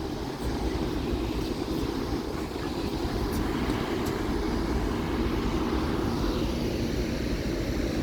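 Steady low rushing noise of wind and sea past a moving cruise ship.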